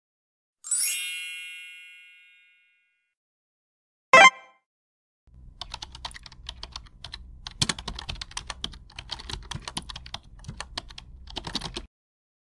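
Editing sound effects: a bright chime rings once and fades over about two seconds, a single short pop comes about four seconds in, then a rapid keyboard-typing effect runs for about six seconds and cuts off suddenly.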